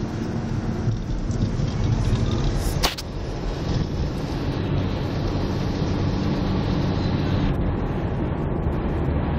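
Steady low rumble of a car's engine and tyres heard from inside the cabin while driving, with one sharp click about three seconds in.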